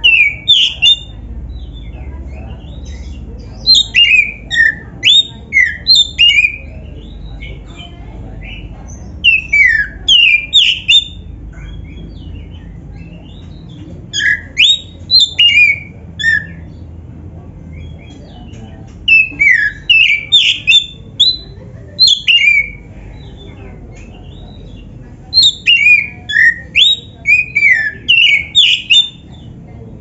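Caged black-breasted Oriental magpie-robin (kacer) singing: about six bursts of loud, quick whistled phrases of sweeping notes, separated by pauses of a couple of seconds.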